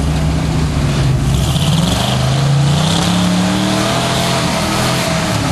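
Engine of a lifted Chevy Suburban 4x4 on 44-inch Boggers mud tyres, revving up about a second in and holding at higher revs.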